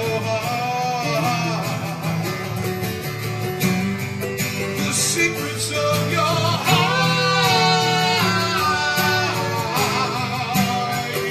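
A man singing live to his own acoustic guitar accompaniment, the voice swelling into a long sung phrase in the second half.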